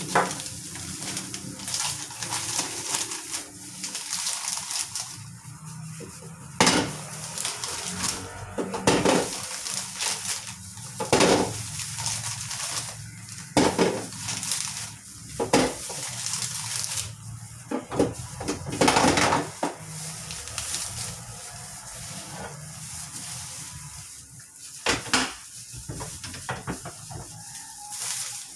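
Hollow plastic toy capsules clacking against each other and against a small plastic capsule vending machine as they are handled and loaded, with irregular sharp knocks over the crinkling of a thin plastic bag and disposable plastic gloves.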